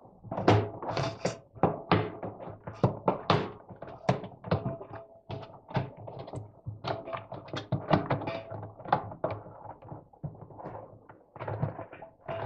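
New rubber washing machine door seal being worked by hand over the lip of a Bosch machine's plastic outer tub: a string of short, irregular bumps and rubbing of rubber against plastic.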